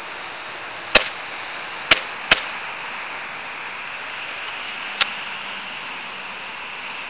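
Four sharp snaps of airsoft shooting with a Daisy Airstrike 240 spring airsoft pistol at a spinner target: three in the first few seconds, two of them close together, and one more about five seconds in, over a steady hiss.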